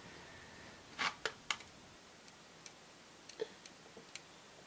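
A few light clicks about a second in, then fainter scattered ticks, from long-nailed fingertips handling a magnetic false eyelash as it is pressed onto magnetic eyeliner.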